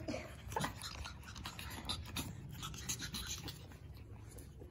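Puppies moving about on a wooden floor: faint scattered scratching and light taps of paws and claws, with a brief small squeak or two near the start.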